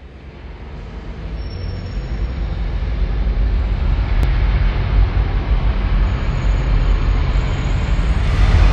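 Logo-intro sound effect: a low rumbling rush that builds steadily in loudness and peaks near the end.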